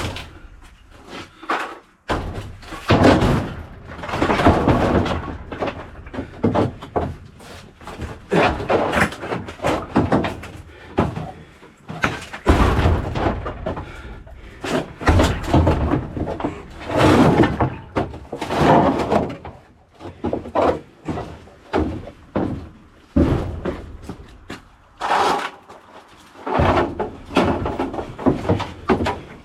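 Repeated irregular bangs, knocks and clunks ringing in a small room, some loud and sharp, coming every second or two.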